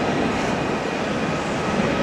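Jet engines of an Airbus A320neo airliner running: a loud, steady noise with a faint high whine held through it.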